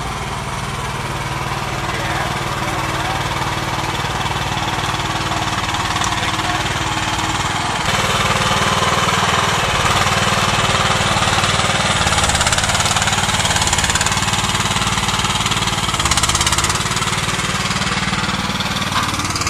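Mini excavator's engine running steadily as the machine works, getting louder about eight seconds in.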